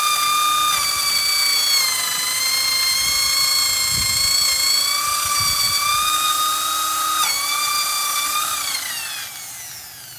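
Corded electric drill with a hole saw boring a hole through a wooden gate for a door lock: a steady motor whine that dips in pitch now and then as the saw bites, then winds down near the end as the drill is let off.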